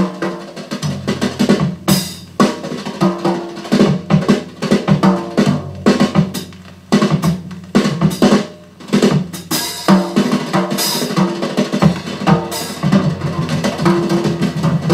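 Drum kit played from a hi-fi test record through loudspeakers: a busy run of sharp strokes with ringing low drum tones. It is a dry recording of the drums alone, with no reverberation or echo.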